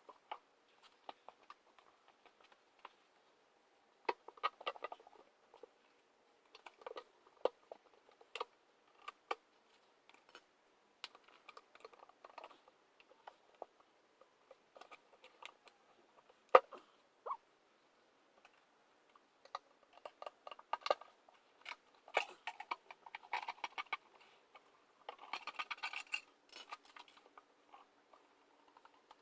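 Scattered light clicks, clinks and rustling from tools and parts being handled during hand work on a motorcycle wheel and tyre, with one sharper knock about halfway through and a busier patch of clatter near the end.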